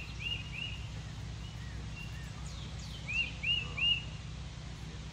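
A bird singing short phrases of three quick rising-and-falling notes, once at the start and again a little past the middle, over a steady low outdoor rumble.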